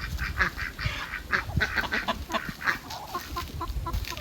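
A flock of poultry calling, many short squawks and honks several a second, overlapping.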